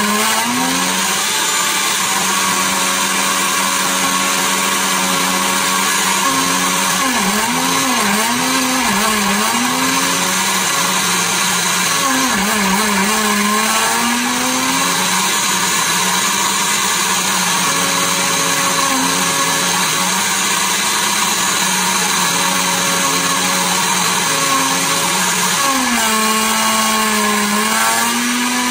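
Oster Pro 1200 blender running continuously, blending strawberries and liquid in its glass jar into a smoothie. Its motor hum dips in pitch and recovers several times: around a quarter of the way in, about halfway, and near the end.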